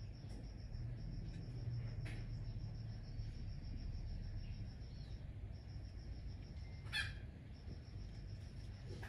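Insect chirping: a high, thin, rapid even pulsing that breaks off briefly a few times, over a low steady hum, with one short sharp sound about seven seconds in.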